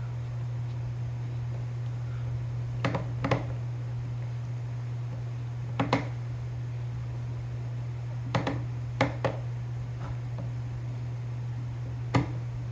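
Scattered sharp clicks and taps, about eight in all, from handling a rental airsoft gun and its parts, over a steady low hum.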